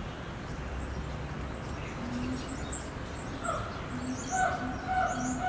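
Birds chirping, with a short low call repeated several times. About three and a half seconds in, a siren starts and holds a steady two-tone note.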